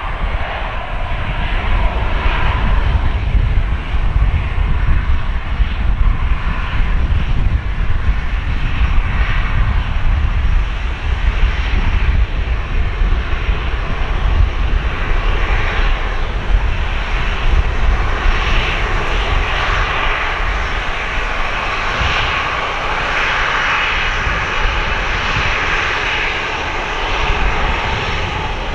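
Boeing 737-800's twin CFM56-7B turbofans running at idle as the airliner taxis after landing: a steady low rumble with a hissing whine that grows louder through the second half, then eases slightly near the end.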